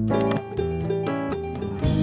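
Music on plucked strings, harp and guitar, playing a tune of separate plucked notes that ring on over a low bass line. Near the end a brighter, fuller layer comes in.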